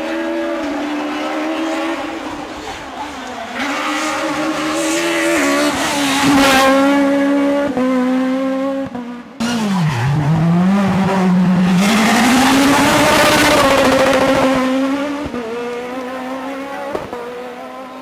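Peugeot 306 Maxi rally car's four-cylinder engine at high revs, pitch stepping up and down through quick gear changes. About nine seconds in the sound breaks off briefly; the revs then drop deep and climb again to the loudest stretch.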